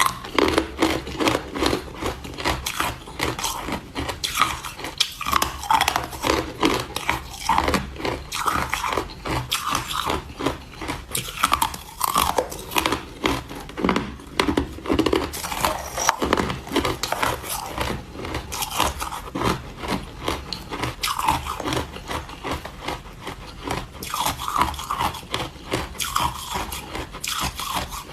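Hard ice being bitten and chewed close to the microphone: continuous sharp cracking and crunching as the chunks break between the teeth.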